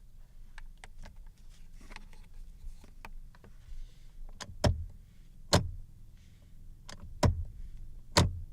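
Light clicks and taps on parts of a Lexus LX450D, then four louder sharp knocks in the second half, over a low steady hum.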